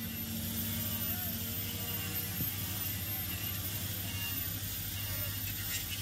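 CAT 320C hydraulic excavator's diesel engine running steadily under load as the boom lifts the bucket, a steady low hum.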